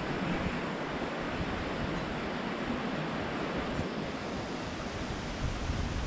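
Steady rushing wind with a low, uneven rumble of wind buffeting the microphone.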